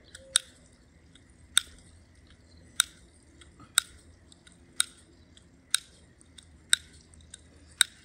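Dial of a Jet Roulette hose spray nozzle being clicked round eight times, one sharp click about every second, counting off the number called before the water is released.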